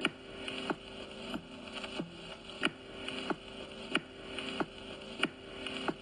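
Sample-based instrumental beat: a looped sample with sustained tones under a steady drum hit about every two-thirds of a second.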